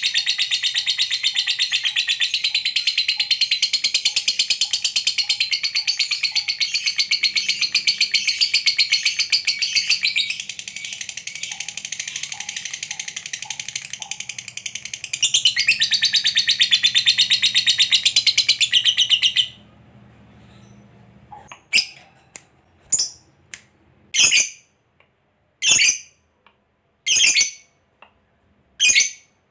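Lovebird ngekek: a long, unbroken, very rapid high chattering trill that runs for about twenty seconds, a little softer in the middle, and cuts off suddenly. It is followed by single sharp chirps about once a second.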